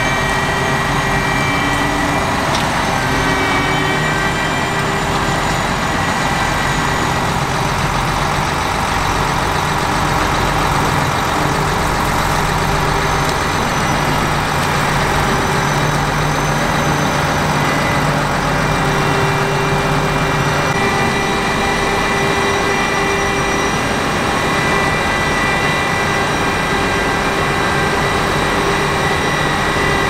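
Claas Lexion 770TT tracked combine harvester running close by as it drives, its engine a steady noise with several high whines held over it.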